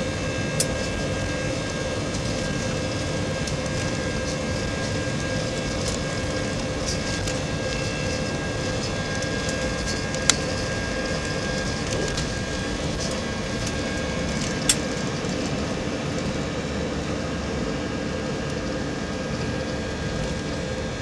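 Jet airliner's engines at takeoff power, heard from inside the cabin: a steady, dense rumble with a constant whine over it, through the takeoff roll and lift-off. Three short sharp clicks stand out, the loudest about halfway through.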